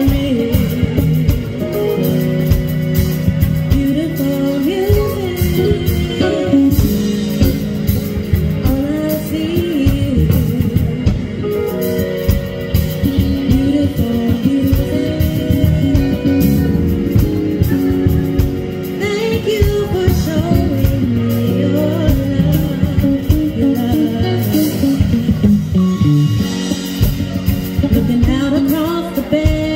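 Live band playing, with a woman singing lead over electric bass, keyboards, guitar and drums.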